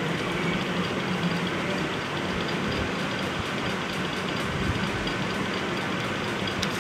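Steady mechanical drone with hiss, even and unchanging throughout.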